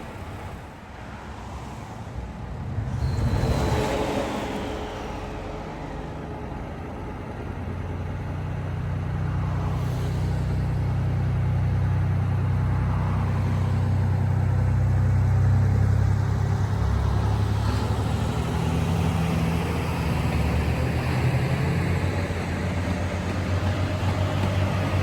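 Diesel railcar engine running with a heavy low rumble that builds about a third of the way in and stays loud. A short whoosh with a falling tone comes a few seconds in.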